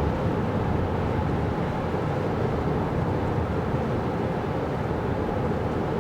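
Steady road noise of a 2024 Kia Carnival Hybrid minivan on the move: an even low rumble of tyres and drivetrain with no distinct events.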